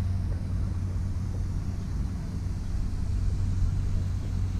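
Steady low rumble of city background noise, mostly road traffic, with no distinct events.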